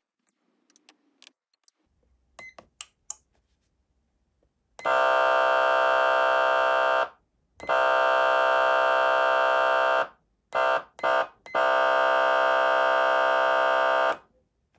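SoundOff Signal nERGY 400 siren amplifier sounding a steady electronic horn tone in blasts: one of about two seconds, one of about two and a half, a few quick short blasts, then a last one of about two and a half seconds. Before them come a few faint clicks.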